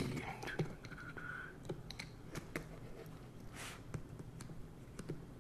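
Faint, scattered light clicks and taps of hands working at the packing tape on a cardboard shipping box, with a brief squeak about a second in and a short scrape a little past halfway.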